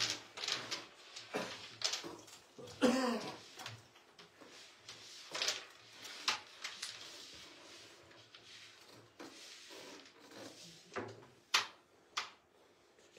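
Carrom striker flicked into the carrom men: a series of sharp wooden clicks and clacks as the striker hits and the pieces knock together and against the board's rails. A brief vocal sound about three seconds in is the loudest moment.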